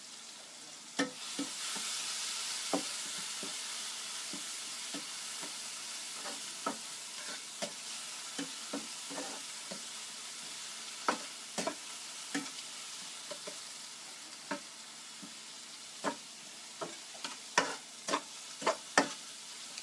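Seafood frying in a pan with a steady sizzle that swells about a second in and slowly dies down, while a utensil stirring it scrapes and clicks irregularly against the pan.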